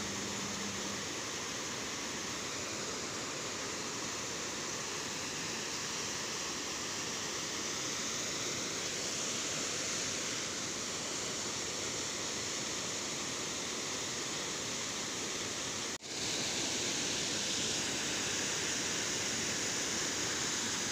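Water pouring over a dam spillway and churning into the pool below: a steady rushing noise. It cuts out for an instant about sixteen seconds in, then returns a little louder.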